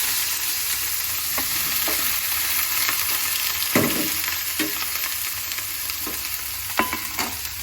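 Boiled fiddlehead ferns sizzling in hot oil in a pan as they are stirred, with a few sharp knocks of the utensil against the pan.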